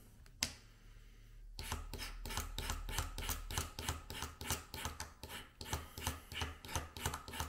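Knife blade scraping along the bottom of a small model railroad rail in quick, evenly repeated strokes, about four a second, starting about one and a half seconds in after a single light click. The scraping is taking the weathering off the rail so that it will take solder.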